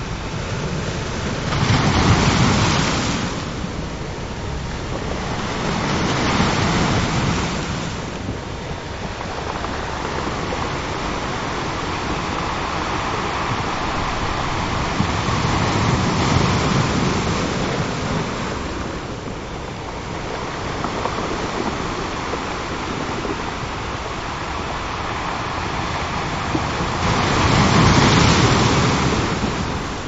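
Ocean surf washing onto a beach: a steady rush of water that swells with each breaking wave and falls back. The two strongest waves come right at the start and near the end, with gentler ones in between.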